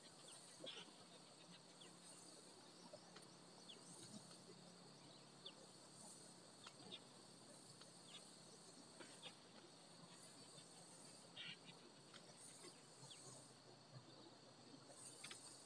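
Faint insect chorus: a steady high buzz that swells every second or two, with scattered soft clicks.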